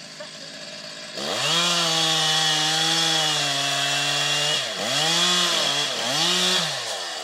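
Chainsaw idling, then opened to full throttle about a second in and held at high revs for over three seconds. The revs sag a little under load while it cuts through the trunk for the felling cut. Two shorter bursts of throttle follow, and it drops back to idle near the end.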